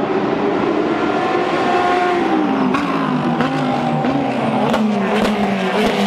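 Several GT race car engines running hard through a corner at once, their pitch falling and rising as the drivers shift gears, with several sharp cracks in the second half.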